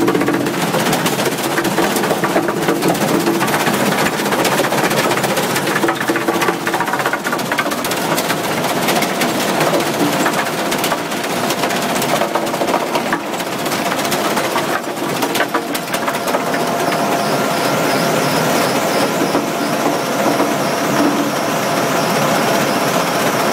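Powerscreen Warrior 1800 mobile screener running under load as it screens topsoil. The diesel power unit and the vibrating screen make a loud, steady mechanical noise, with a dense rattle of soil clods and stones shaking over the screen mesh and riding the conveyors. About two-thirds of the way through, steady tones join in.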